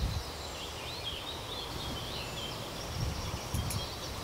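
A small songbird singing quick warbling phrases for the first couple of seconds, over quiet outdoor background noise with a low rumble.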